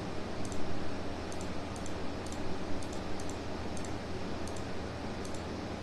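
Light, irregular clicks of a computer keyboard and mouse as IP addresses are typed into form fields and boxes are ticked, over a steady low background hum.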